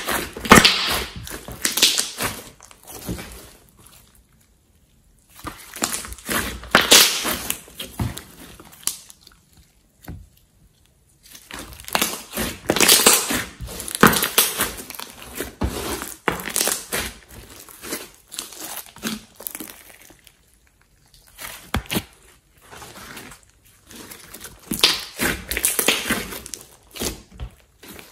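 Slime being squeezed and stretched by hand, giving crackling, popping noises in four long stretches with short pauses between them.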